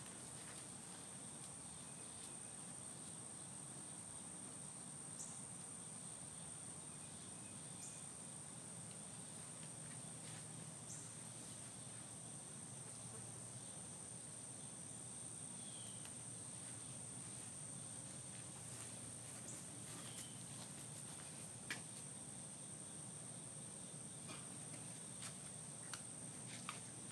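Steady, high-pitched chorus of insects, with a few faint scattered clicks.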